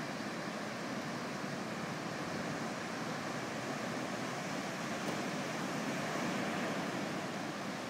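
Ocean surf breaking and washing onto a sandy beach: a steady rush of small waves, swelling slightly about five to six seconds in.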